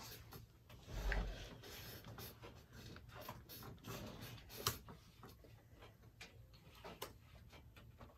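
Close-miked eating sounds of a person biting into and chewing a large burger: wet mouth clicks and chewing noises scattered throughout, with a heavier bite sound about a second in and a sharp click a little before the middle.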